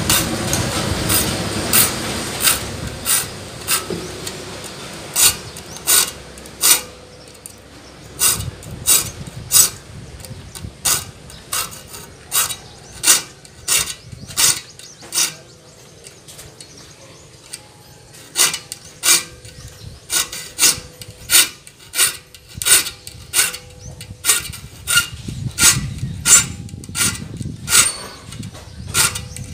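A small hand file rasping across the teeth of a handsaw held in a metal vise, sharpening the blade. It comes in short, even strokes at about one or two a second, with a brief pause around the middle.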